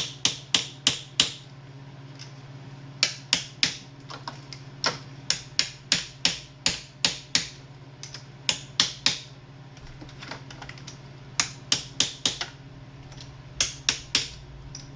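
Light, quick hammer taps on diesel fuel injectors, seating them in the cylinder head of a BMW M57 engine. The taps come in runs of about four to eight, a few a second, with short pauses between runs.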